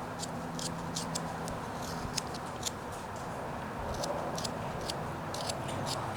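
Knife blade shaving thin cuts off a small wooden paddle being whittled down: short, crisp scraping ticks, about three a second, irregular, over a steady low hum.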